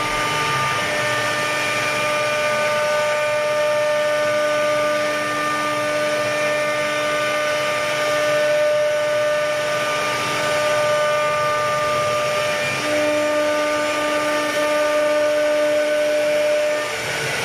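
CNC router spindle running steadily as it cuts the wood of a door panel: several held machine tones over a continuous hiss, with a lower tone growing louder about thirteen seconds in.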